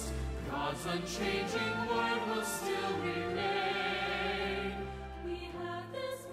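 Background music with singing voices over a steady low bass; the bass drops out near the end.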